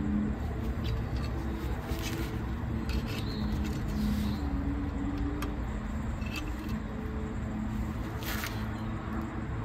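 Small metal clicks and taps of hand tools at a car's front brake, with a screwdriver wedged against the brake disc, over a steady background rumble; one sharper click comes near the end.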